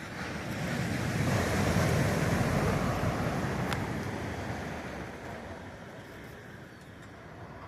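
Ocean surf: a wave breaking and washing up the beach, swelling for about two seconds and then slowly fading away.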